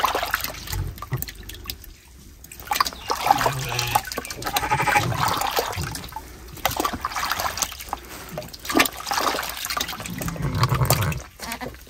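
Water sloshing and trickling in a plastic bucket as a hand stirs and squeezes jaggery into it to dissolve it, in irregular splashes.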